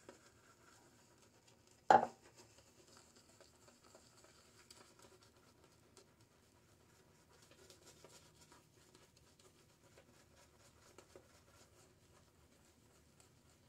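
Boar-bristle shaving brush scrubbing lather onto a bearded face: a faint, continuous bristly scratching. A single sharp knock about two seconds in.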